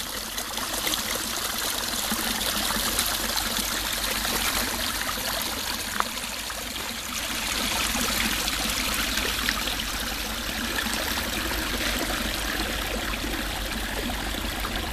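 Small garden waterfall running steadily over rocks into a pond, with one short click about six seconds in.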